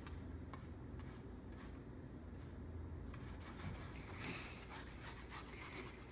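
Paintbrush loaded with acrylic paint brushing across stretched canvas in short strokes, a soft scratchy rubbing repeated several times, coming faster in the second half.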